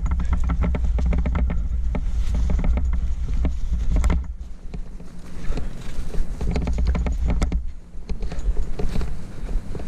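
Close handling noise of a cat being bundled into a fabric bag by a climber: rustling, scraping and knocking against the helmet microphone over a low wind rumble. The handling is busiest for the first four seconds and then turns quieter and patchier.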